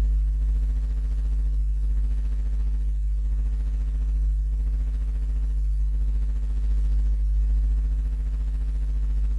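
Steady low electrical hum with a buzzy row of evenly spaced overtones: mains hum picked up by the recording setup.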